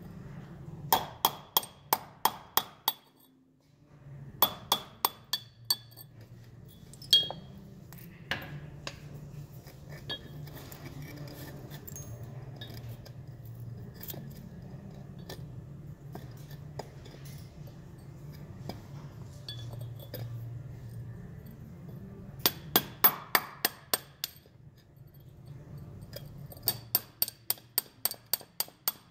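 Ball-peen hammer striking a steel chisel in quick runs of ringing metallic taps, about four a second, chipping the plaster investment mold off a freshly cast aluminum piece. In the middle the tapping stops for a long stretch, leaving only faint clinks of the casting being handled over a low steady hum.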